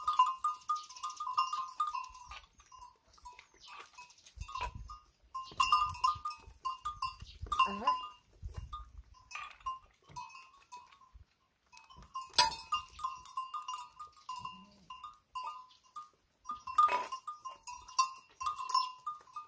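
Metal bell on a goat's neck clinking and ringing irregularly as the goats dip their heads into a metal feed bowl to eat.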